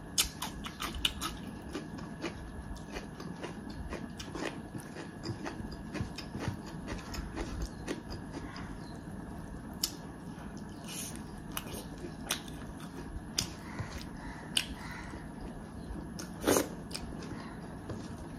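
A person chewing and eating a meal, with many small, irregular crisp clicks and one sharper knock near the end.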